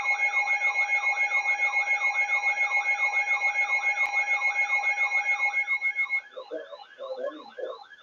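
Electronic emergency alert tone: two steady tones under a fast warble that sweeps up and down about three times a second. About six seconds in, the steady tones cut off, and the warble carries on over broken lower sounds.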